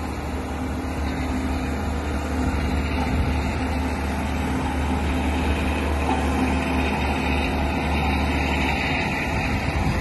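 Dynapac single-drum soil compactor's diesel engine running at a steady, low drone as the roller drives over the gravel road base.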